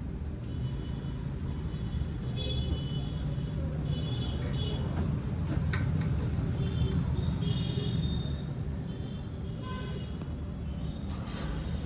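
Steady low background rumble with several short high-pitched toots scattered through it.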